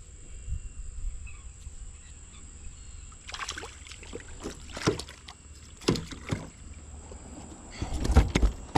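Scattered knocks and clatter on a kayak, with a louder cluster of thumps near the end, as a hooked spotted bass thrashes and is brought aboard.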